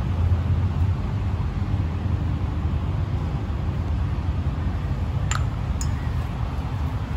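Steady low rumble of vehicle noise, with two sharp clicks about half a second apart a little past five seconds in.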